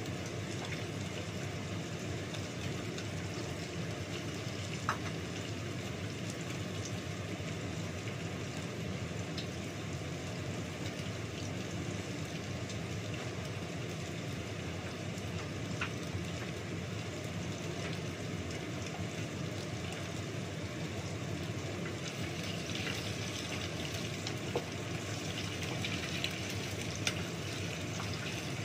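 Steady kitchen noise while cooking: an even hiss over a low hum, with a few light clicks of dishes and utensils. The hiss grows a little brighter near the end.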